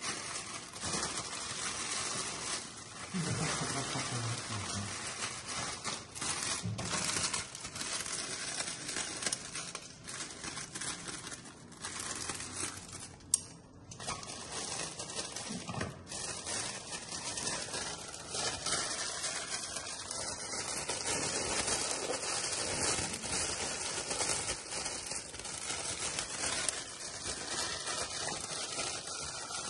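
Clear cellophane wrapping film crinkling and rustling as hands gather and tuck it, with one sharp click about halfway through.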